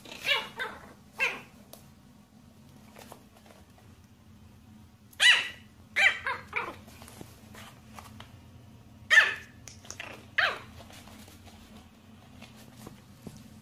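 Small white fluffy puppy yapping in short bursts. A few yaps come right at the start, a quick run of them about five seconds in, and two more around nine and ten seconds.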